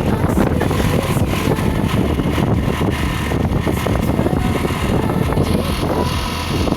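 Steady vehicle running noise with wind buffeting the microphone.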